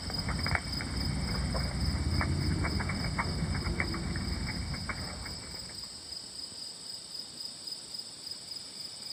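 Wood campfire crackling with scattered sharp pops for about the first six seconds, then fading, over insects trilling steadily throughout.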